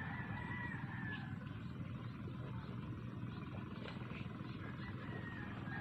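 Steady low wind rumble buffeting the microphone, with a few faint high chirps over it.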